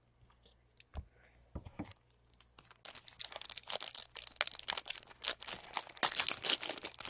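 A trading-card pack's foil wrapper being torn open and crinkled, starting about three seconds in, after a few faint clicks.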